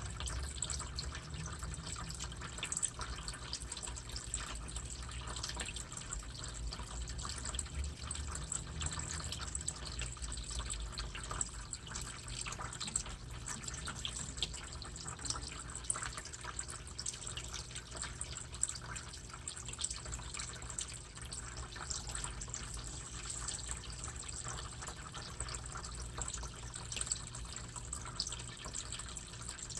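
Water in a turtle tank trickling and dripping steadily, with many small splashes over a low hum.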